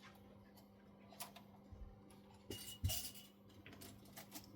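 A few faint clicks, taps and clinks of small hard objects being handled, with one duller knock about three seconds in, over a steady low hum.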